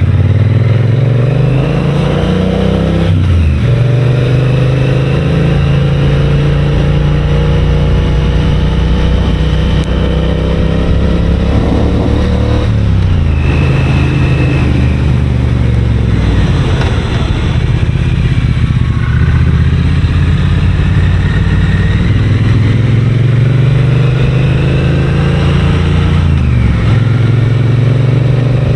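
Triumph Bonneville's parallel-twin engine and exhaust under way, accelerating through the gears. The pitch climbs and drops sharply at upshifts about 3 seconds in, again after about 12 seconds and near the end, and it falls off around the middle as the bike slows.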